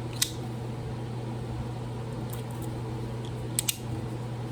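Steady low hum, with a sharp click shortly after the start and two quick clicks near the end.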